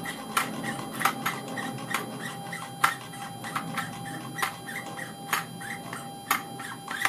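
Stepper motor of a late-1960s Elliott Air Nautical Miles Indicator stepping its mechanical mileage counter, heard as irregular sharp clicks about every half second to a second, the pace set by the input voltage from the potentiometer being adjusted.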